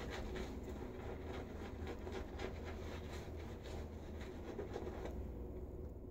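Badger-hair shaving brush scrubbing lather onto a bearded face: a soft, quick scratchy swishing that stops about five seconds in.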